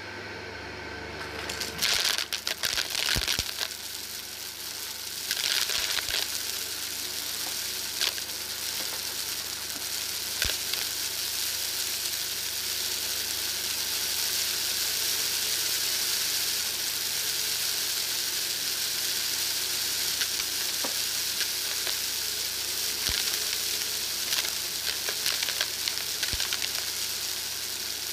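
Shark DuoClean Lift-Away vacuum running over carpet and sucking up spilled granules and beads. Its steady hiss carries dense crackling and crunching as the debris rattles up through the floor head, heaviest about two seconds in and again near the end, with a few sharp clicks.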